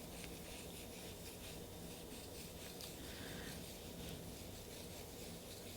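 Faint light scraping and small clicks from nail-stamping tools being handled while a second polish colour is stamped over a white base.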